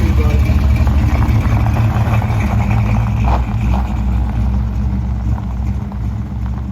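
1968 Camaro SS V8 running with a steady, deep engine sound that fades gradually as the car pulls away.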